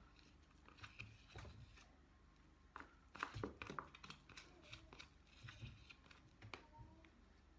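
A small spoon stirring shea butter and fenugreek oil together in a container, giving faint scattered clicks and scrapes, busiest about three to four seconds in.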